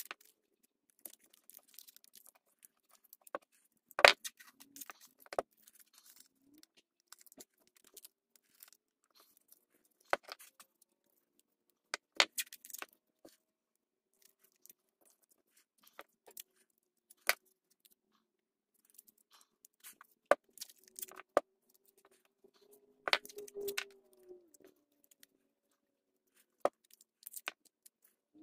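Masking tape being pulled from the roll, torn and pressed around a steel hammer head: scattered short crackles and clicks, with a few sharper knocks.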